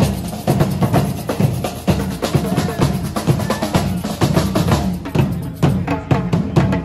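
A street drum troupe playing a fast, steady beat on marching snare and bass drums.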